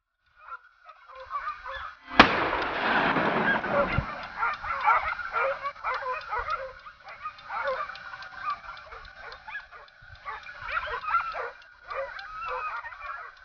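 A pack of hunting dogs yelping and baying in quick, overlapping cries throughout. A single gunshot about two seconds in is the loudest sound, and it echoes for about two seconds.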